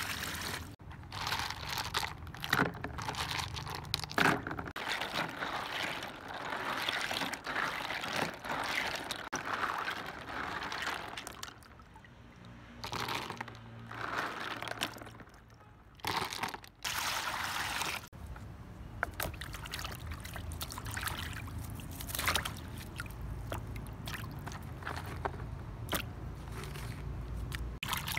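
Water pouring into a plastic basin, then hands sloshing and scrubbing field snails in the water, with many short clicks of shells knocking together.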